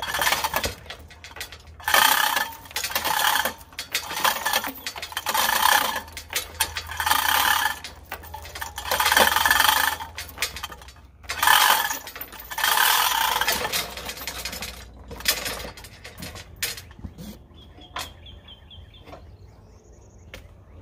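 Manual chain hoist on a gantry being hand-pulled, its metal chain rattling in repeated bursts about once a second with each pull. The rattling stops about fifteen seconds in, leaving only a few faint clicks.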